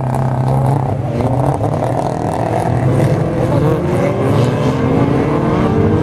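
A pack of autocross race cars lapping together, several engines revving at once. Their overlapping pitches rise and fall as they accelerate through a bend.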